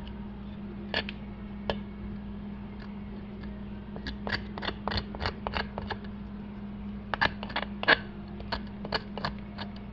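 Knife blade scraped along raw meat in short strokes, clearing off the bone dust and marrow left by the butcher's saw: a few scattered scrapes, then quick runs of two to three strokes a second from about four seconds in. A steady low hum runs underneath.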